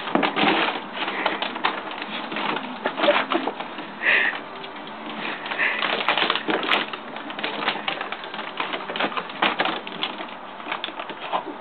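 A plastic dog-food bag crinkling in rapid, irregular crackles as a dachshund burrows inside it after the last kibble.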